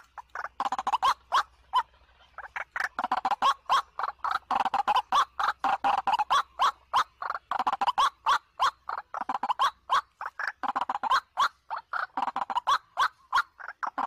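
White-breasted waterhen (ruak-ruak) calling: a loud, unbroken run of harsh repeated notes, about five or six a second.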